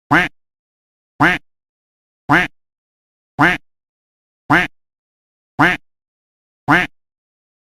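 A single duck quack repeated seven times at an even pace, about one a second, each a short nasal call with dead silence between. The quacks are identical copies looped as a sound effect.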